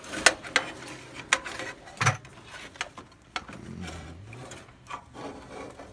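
Sheet-metal electric heating element assembly being pulled out of an air handler cabinet by hand: an irregular series of sharp metallic clicks and knocks, about seven in all, as the metal housing shifts against the cabinet.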